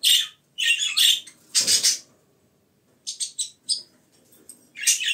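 Budgerigars giving a string of short, harsh chirps and squawks with short gaps between them, the loudest one about two seconds in.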